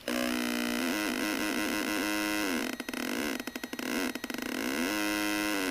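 Homemade electronic sound effects generator putting out buzzy synthesized tones that glide up and down. About halfway through the tone breaks into rapid stuttering pulses, then settles into a steady tone near the end.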